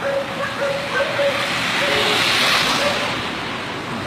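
Rushing wind and road noise from a moving car, swelling about halfway through, with a faint on-and-off tone during the first three seconds.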